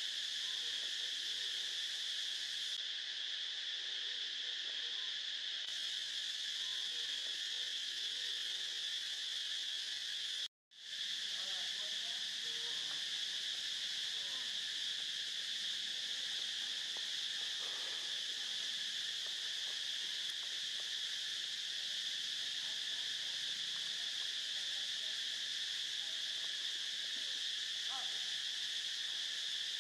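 A steady, high-pitched drone of an insect chorus that cuts out abruptly for a moment about ten seconds in, with faint short sounds underneath.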